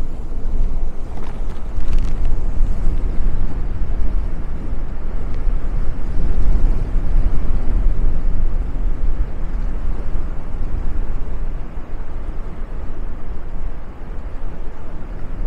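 Outdoor ambient noise: a loud, steady low rumble with no distinct tones, strongest in the bass and wavering in level.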